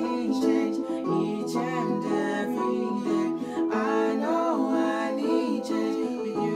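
Two young men singing together in sliding, drawn-out runs, over held chords played on a Yamaha electric keyboard.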